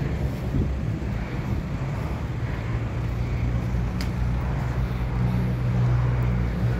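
Steady low motor hum over outdoor street noise, with one sharp click about four seconds in.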